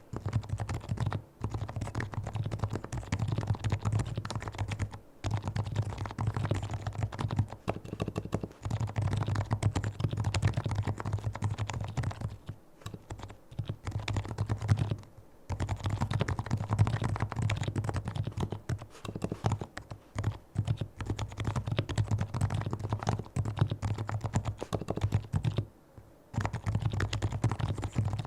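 Steady, fast typing on a Leopold FC660C keyboard with fully lubricated Topre electrostatic capacitive switches, the keystrokes coming in dense runs broken by a few short pauses.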